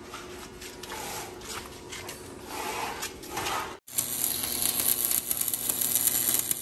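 Rubbing, rasping noise, then after a cut, arc welding on the steel gate hinges: a dense, steady crackle over a low hum.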